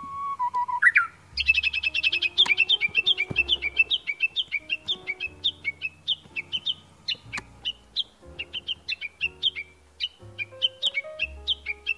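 Japanese bush warbler (uguisu) calling. It opens with a held whistle that drops and ends in a quick rising flourish. Then comes a long, fast run of sharp repeated 'kekyo-kekyo' notes, the valley-crossing call, which sounds wary, like an alarm.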